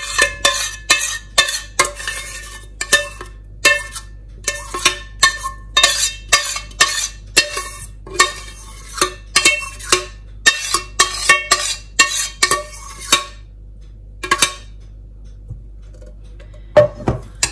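Metal spoon scraping and knocking against the inside of a stainless steel pot as thick yogurt is scraped out, about two strokes a second. The strokes stop about thirteen seconds in, with one more a little later.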